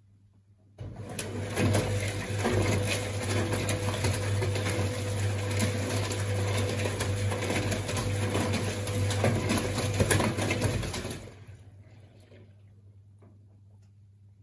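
Hajdú Energomat Komfort top-loading washing machine's drum spinning under its motor: a steady hum and whirr that starts abruptly about a second in and cuts off about eleven seconds in, dying away as the drum coasts to a stop.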